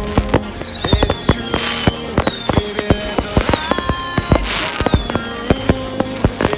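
Consumer fireworks going off in a rapid, irregular string of bangs and crackles, with electronic music playing over them.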